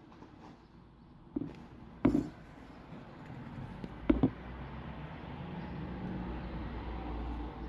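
A few sharp knocks, the loudest about two seconds in, from a glue bottle and mixing bowl being handled on a table. Then a low steady rumble that builds over the last few seconds.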